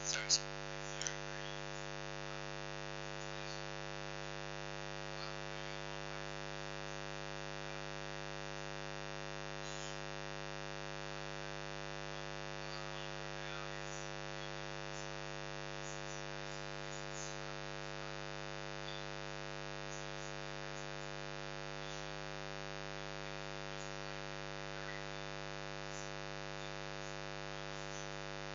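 Steady electrical mains hum, a buzz with many even overtones, with a few faint scattered clicks and crackles, the clearest near the start.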